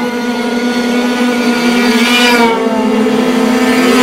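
Several 49cc prototype dirt-bike engines at high revs as the bikes ride past close by. One steady engine note holds throughout, while other engine notes rise and fall as riders accelerate past, and the sound grows louder toward the end.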